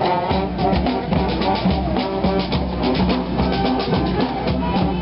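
Street brass band playing, horns holding notes over a bass drum and snare beat; the bass drum comes in strongly just after the start.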